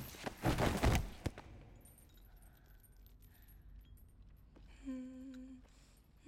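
A sudden burst of metal chain jangling and scuffling, about a second and a half long, as a body drops to a stone floor. Near the end, a woman begins humming a low tune.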